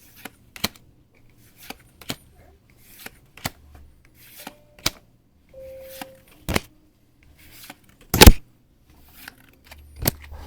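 Pokémon trading cards being handled and flipped through one by one, giving irregular short flicks and taps, with one louder knock about eight seconds in.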